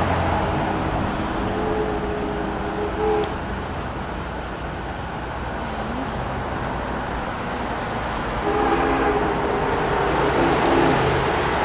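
Nickel Plate 765's steam whistle blowing a chord as the locomotive approaches out of sight: one long blast that cuts off about three seconds in, then a second long blast starting near the end. Steady city background noise underneath.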